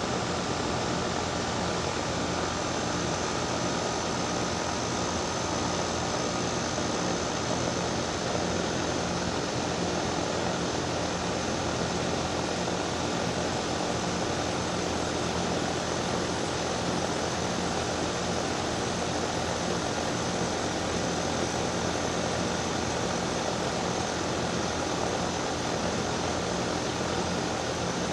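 Scroll compressor of a Daikin DX14 2-ton air-conditioner condensing unit running with a steady hum and whine over a broad rushing noise from the unit. It is abnormally loud for this compressor.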